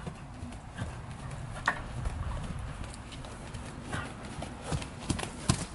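A ridden horse's hoofbeats on a sand arena: a run of dull, irregular thuds with a few sharper clicks.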